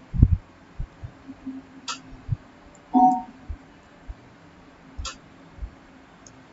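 Scattered low knocks and a few sharp clicks over a faint steady hum, with one louder short sound about three seconds in.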